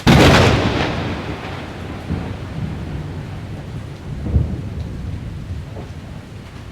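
A thunderclap: a sudden loud crack right at the start that rolls off into low rumbling, with further rumbles a couple of seconds later, over the steady hiss of rain.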